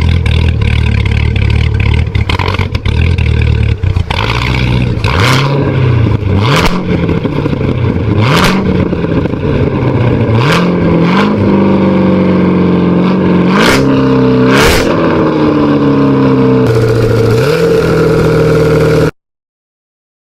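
Car engine idling, then revved in several short blips, each ending in a sharp pop as the throttle closes. Later the revs climb in steps, fall away with another pop, hold steady, and cut off suddenly about 19 seconds in.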